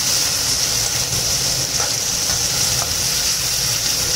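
Beetroot pachadi with grated coconut sizzling steadily in a metal kadai as it is stirred with a spoon, with a couple of faint scrapes of the spoon against the pan midway. It is being cooked until the coconut's raw smell goes.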